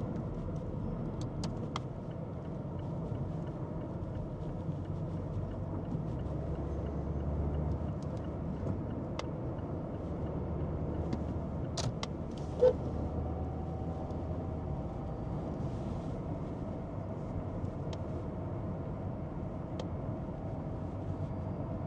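A car driving: a steady low rumble of engine and road noise, with a few light clicks and one short sharp sound about halfway through.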